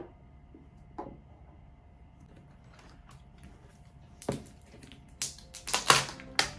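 Kinder Joy eggs' foil wrappers being torn open and crinkled by hand. There are two light taps in the first second, a sharp crackle about four seconds in, then dense crinkling for the last couple of seconds.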